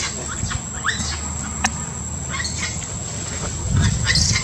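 Short high squeaks and chirps from animals in the trees, some rising in pitch, with a sharp click about a second and a half in and a louder, noisier stretch near the end.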